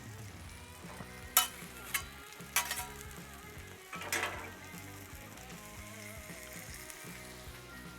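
Cheese frying and sizzling on a hot Blackstone flat-top griddle, with a few sharp clicks between one and three seconds in and a brief louder burst of sizzle about four seconds in.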